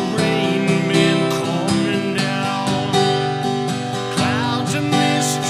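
Acoustic guitar strummed with a pick at a steady tempo, moving from a G chord to C and back to G.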